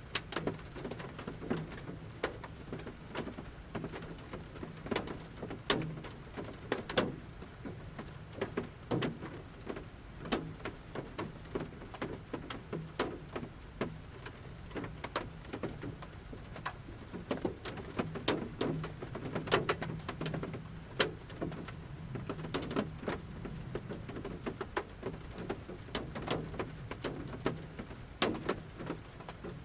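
Large raindrops from a forest canopy falling on the roof of a camper van, heard from inside the van: many separate sharp taps at uneven intervals over a faint steady rain hiss.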